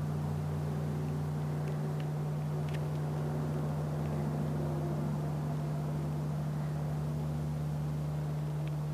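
A steady low hum over a faint hiss, with a few faint ticks about two seconds in.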